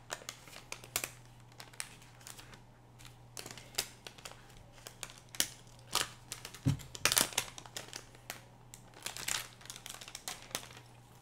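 Irregular crinkling and rustling of a plastic comic book bag being handled, with scattered sharp crackles.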